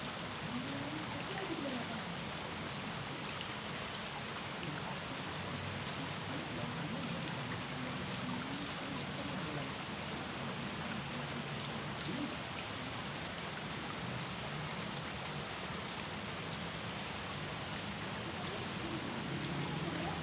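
Steady rain falling on a pond's surface, an even hiss of drops with a few sharper single ticks now and then.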